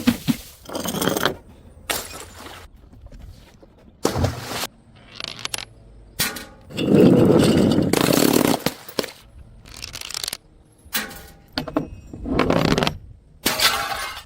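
A rapid series of sudden breaking and crushing impacts, one after another with short gaps, with a longer, louder crunching stretch about halfway through.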